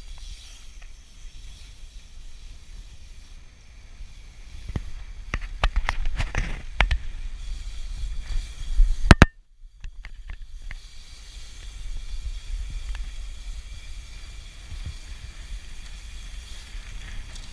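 Wind buffeting an action camera's microphone while riding a mountain bike on asphalt, with a steady low rumble of tyres and air. Partway through comes a run of sharp clicks and knocks from the bike, loudest just past halfway, followed by a brief cut-out in the sound.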